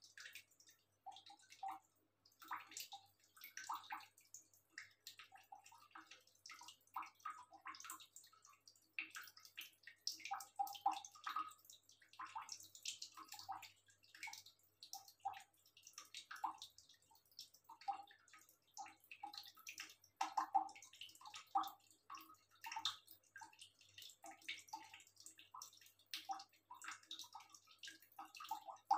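Water dripping and trickling from a wall tap while a cat laps at it: a quick, irregular run of small wet drips and licks.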